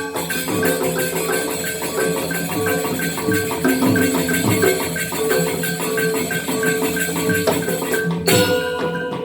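Balinese gamelan playing legong dance music: a fast, even stream of struck bronze metallophone tones over a low steady drone. About eight seconds in the music breaks and comes back brighter and denser.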